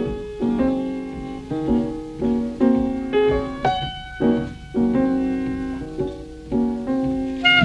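Piano music: a run of struck notes and chords, each dying away before the next.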